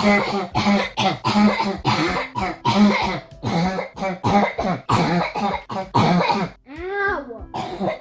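A person coughing over and over, short harsh barking coughs in quick succession, about two or three a second. There is a brief break with a falling vocal sound near the end before the coughing resumes. This is the repetitive dry barking cough of habit cough syndrome.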